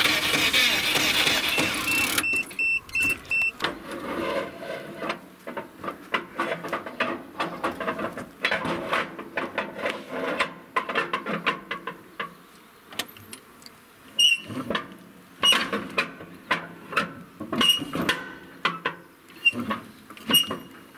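UAZ engine being turned over with the hand crank: loud dense noise for about the first two seconds, then a long run of irregular clicks and knocks, with short high beeps now and then.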